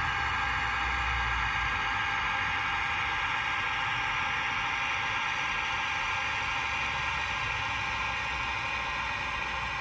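Model railway DCC sound decoder playing a steady diesel engine running sound.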